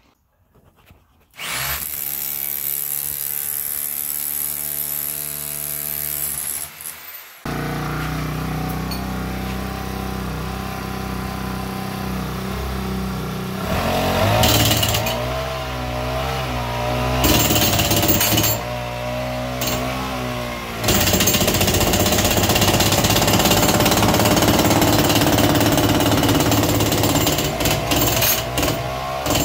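Electric rotary hammer chiselling through a concrete block wall to open a hole for a duct. It starts about a second and a half in and runs loud and steady, with short breaks.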